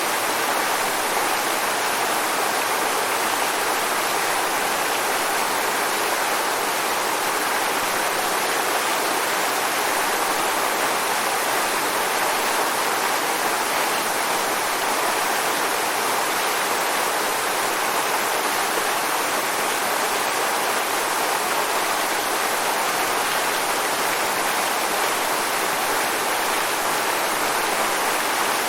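Waterfall: a steady rush of falling water, even and unbroken, with most of its sound in the middle and upper range and little low rumble.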